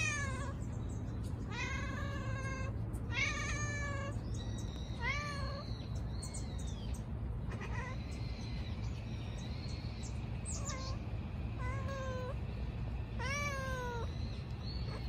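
Tabby-and-white stray cat meowing repeatedly, about eight separate meows, some long and drawn out, others short.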